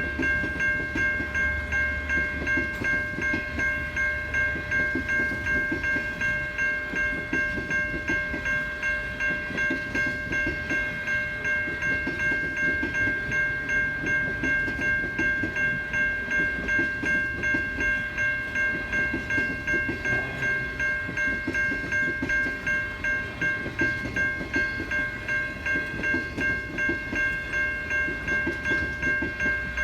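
Standard gauge freight train's wagons rolling through a level crossing, wheels clacking over the rails. The crossing's electronic bells ring on steadily with a high, evenly pulsing tone.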